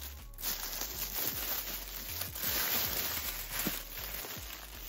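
Thin plastic bag crinkling and rustling with many small crackles as it is pulled and handled around a boxed binder.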